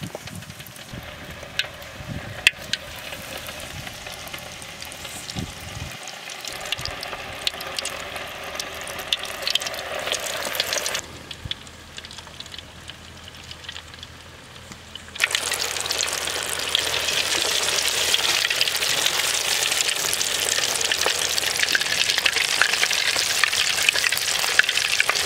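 Oat-coated fish pieces deep-frying in hot oil, with a soft crackle and a few clicks at first. About fifteen seconds in it becomes a loud, dense sizzle as the oil bubbles hard around the pieces, which are stirred with a wire skimmer.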